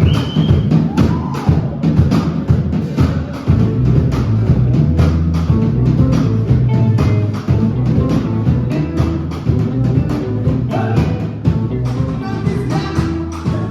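A live rock song kicking off, with a steady drum beat over heavy bass.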